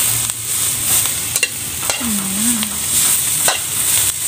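Vegetables and chicken sizzling in a metal wok as they are stir-fried, with a spatula scraping and knocking against the pan a few times.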